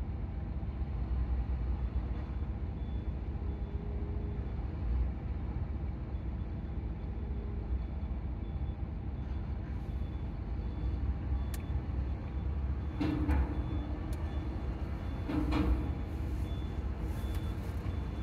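Heavy cargo-handling vehicles' engines running with a steady low rumble, a faint high beep repeating about once a second. In the second half come a few sharp knocks and two short hisses, like air brakes.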